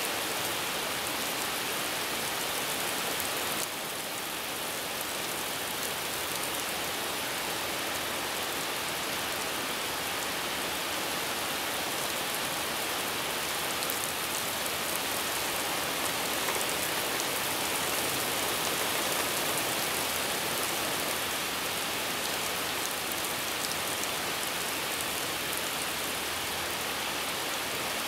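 Steady rain from a thunderstorm falling and hissing, with no distinct thunderclap; the level dips slightly about four seconds in.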